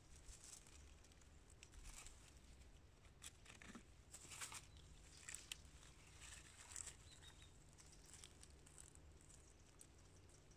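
Faint scraping and crackling of a small hand tool digging into crumbly rotten wood at a stump's base, with brief rustles of dry leaves and twigs; a few short, sharper crackles stand out a little under halfway through.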